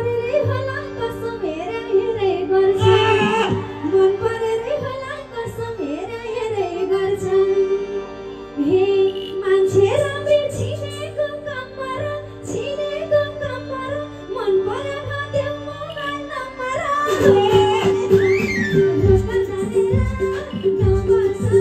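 Live music through a PA system: a woman singing into a microphone over band accompaniment, with a steady held note underneath and a low beat.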